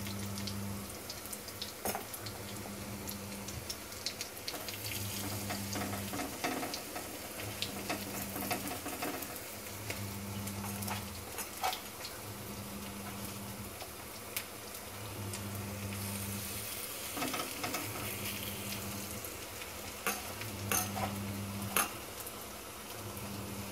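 Onion and gram-flour fritters shallow-frying in a little oil in a kadhai: a steady sizzle with scattered crackling pops.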